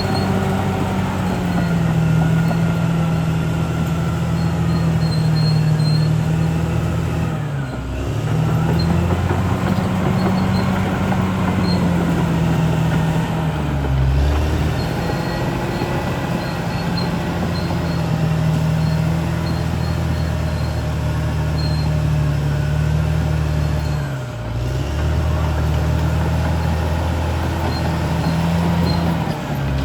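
CAT D6R XL bulldozer's diesel engine running steadily under load, its pitch sagging and recovering three times, about a third of the way in, near the middle and about four-fifths through.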